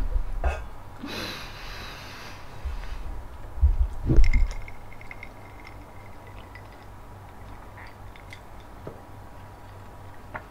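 A person's breathing and throat noises while struggling with the heat of very spicy chili: a breathy exhale about a second in, and a low bump around four seconds.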